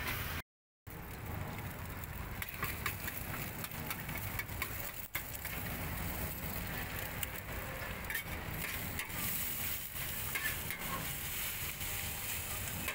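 Metal spatula scraping and tapping on a wide flat steel wok as fried noodles and an egg are stir-fried, with sizzling underneath. The sound cuts out completely for about half a second near the start.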